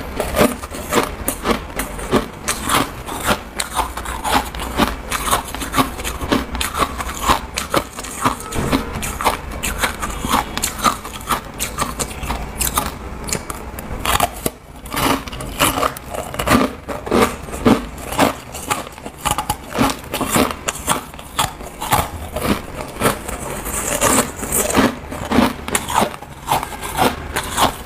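Close-miked biting and chewing of porous, frosty ice chunks: a fast, uneven run of crisp crunches and cracks, with a brief lull about halfway through.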